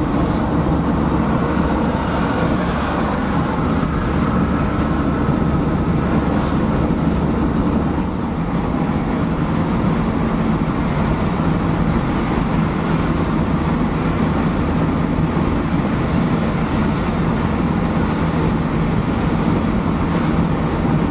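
Steady in-cab road and engine noise of a Mercedes Sprinter van cruising at dual-carriageway speed: tyre noise and a low engine drone, easing slightly about eight seconds in.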